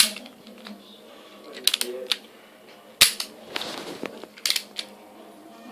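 Replica navy revolver's metal action clicking and snapping as it is handled. There is a sharp snap at once, a quick cluster of clicks about two seconds in, and another snap about three seconds in, followed by a brief rasp. A double click comes near the end.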